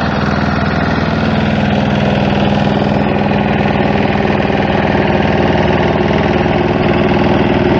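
Walk-behind two-wheel tractor's engine running steadily while its rotary tiller works the damp clay-court sub-base, milling it at the front and pulverising it at the rear.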